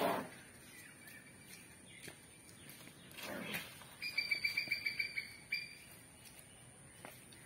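A bird calls a quick run of short, high notes, about eight a second, for a second and a half past the middle. Two brief swishing noises come before it, one at the start and one about three seconds in.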